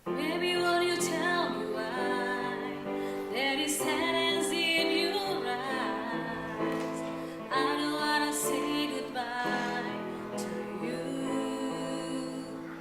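Music with a singing voice over sustained instrumental chords.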